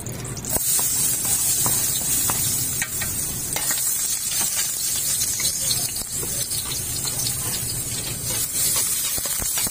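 Minced garlic sizzling in hot oil in a metal pot, the sizzle starting about half a second in and running steadily, with a metal ladle clicking and scraping against the pot as it stirs. This is the garlic being sautéed at the start of a dish.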